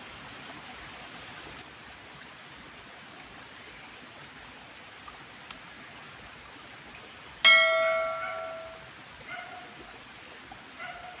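A single bell-like metallic strike about seven seconds in, ringing with several clear tones and fading away over about a second and a half, over a steady background hiss.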